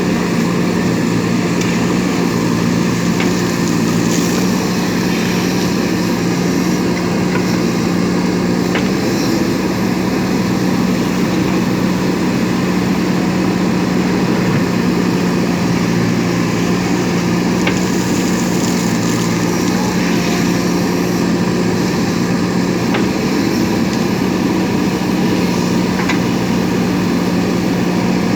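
JCB 3DX backhoe loader's diesel engine running at a steady speed, a constant low hum with a few faint clicks.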